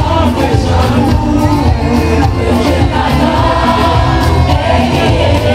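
Loud music with a singer over a strong, steady bass.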